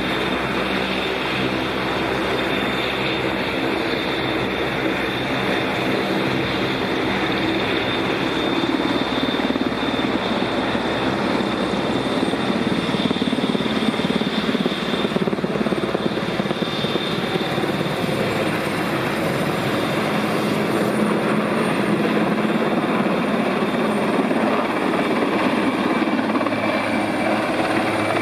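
RAF Aérospatiale SA 330 Puma, a twin-turbine helicopter, flying in and coming down to a low hover. The rotors beat steadily and a high turbine whine runs over them.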